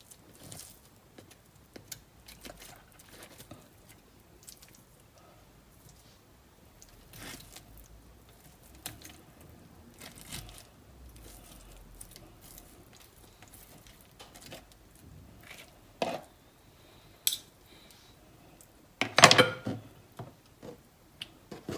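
Fork tapping and scraping on a cutting board while pulling roast chicken meat off the carcass: scattered soft clicks and squishy tearing, with a louder clatter near the end.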